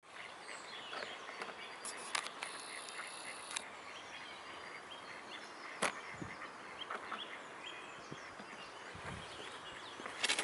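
Outdoor park-pond ambience: a steady hiss of background noise with small birds chirping and a few sharp clicks.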